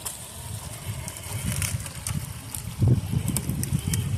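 Traxxas TRX-4 RC crawler working over rocks: a low, uneven rumble with scattered clicks and one louder knock about three seconds in.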